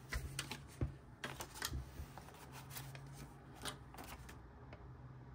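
Paper banknotes being handled and laid down: faint, crisp rustles and flicks of bills, busiest in the first couple of seconds and again about four seconds in.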